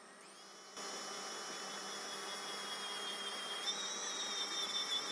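Stand mixer's motor starting up about a second in and running steadily with a dough hook kneading flour, milk and egg into bread dough: a steady whir with a high whine that grows a little louder and wavers about three and a half seconds in.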